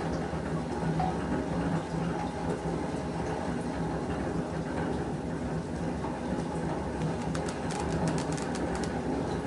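Exercise bike running steadily under pedalling, a constant low mechanical hum and whir. A run of light clicks comes near the end.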